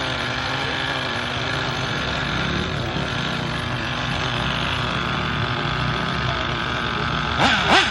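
Nitro RC car's small glow-fuel engine running steadily, then revved twice in quick succession near the end, its pitch shooting up and dropping back each time.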